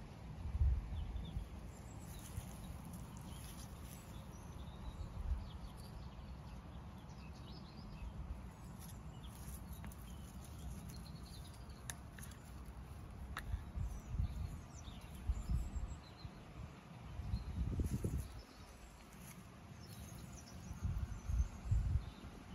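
Outdoor garden ambience: faint, scattered bird chirps over a low rumble that swells now and then, as of wind on the microphone.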